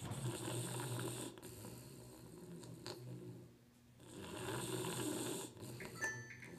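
English bulldog snoring in its sleep: two long snores, the first at the start and the second about four seconds in.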